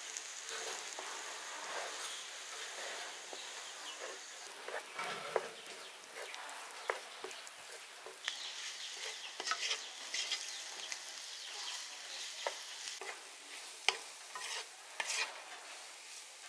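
Beaten egg sizzling in a hot nonstick pan beside fried noodles while a wooden spatula stirs and scrambles it, with frequent scrapes and taps of the spatula against the pan that grow busier about halfway through.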